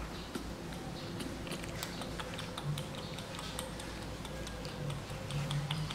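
Baby monkey sucking on the edge of a pillow, making many small, irregular wet clicks of the lips and mouth.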